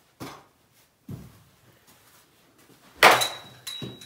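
Metal baseball bat hitting a ball: a sharp ping about three seconds in that rings on for nearly a second, with a softer knock just after it. A couple of light knocks come before the hit.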